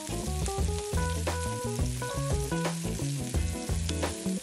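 Beef short ribs searing in oil in an Instant Pot's steel inner pot on the sauté setting, sizzling steadily. Background music with a moving bass line plays over it.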